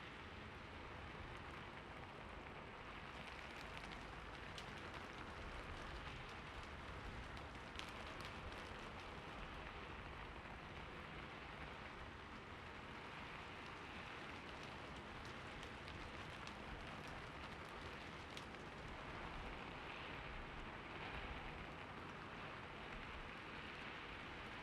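Steady rain falling on a rooftop: an even hiss of rain with scattered sharper drop ticks.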